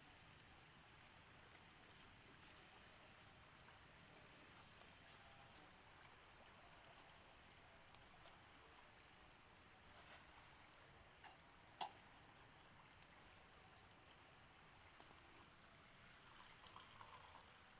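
Near silence: faint ambient background with a steady high-pitched hiss, a few tiny ticks and one small click about twelve seconds in.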